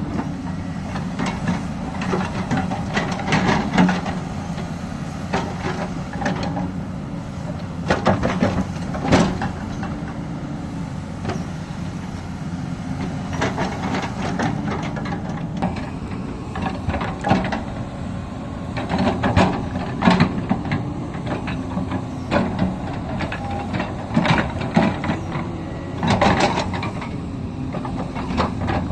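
Repair work on an excavator: irregular clusters of metal knocks and clanks over a steady low machine hum.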